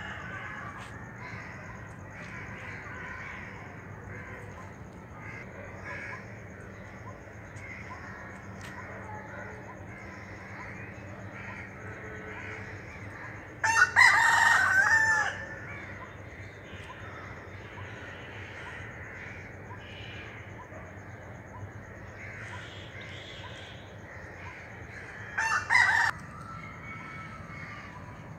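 Two loud bird calls from poultry: a long call about halfway through and a shorter one near the end, over a faint steady background of bird chatter.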